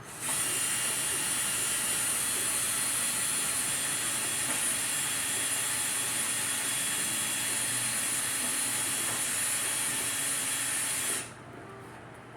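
A loud, steady hiss that starts abruptly and cuts off sharply after about eleven seconds.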